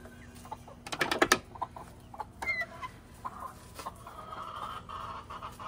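Backyard chickens clucking softly around the listener, with a few sharp knocks about a second in.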